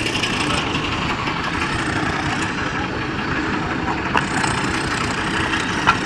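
Rubble stones being set down by hand, with two sharp knocks of stone on stone, one about four seconds in and one near the end, over a steady noisy site background.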